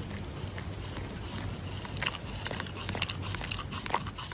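Shiba Inu chewing and mouthing a sheet face mask: irregular wet clicks and crinkles that grow busier about two seconds in, over a steady low hum.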